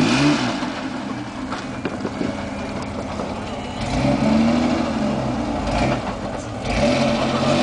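Mercedes-Benz Unimog 404's engine working under load as the truck crawls over rock. The engine revs up about four seconds in and again near the end.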